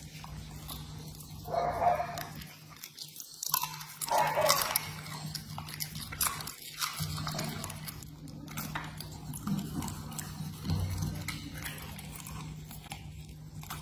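A bully-type dog eating from a hand: wet chewing, biting and licking in irregular bursts.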